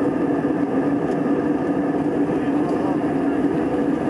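Steady jet engine and airflow noise heard inside an airliner cabin in flight, with a constant low hum through it.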